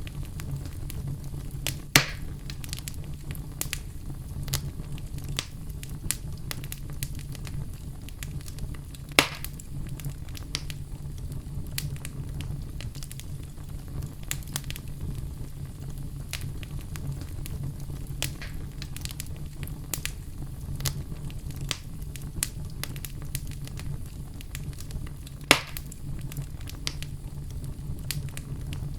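Oak wood burning in a fireplace: a steady low rumble under frequent small crackles, with three louder sharp pops spread through.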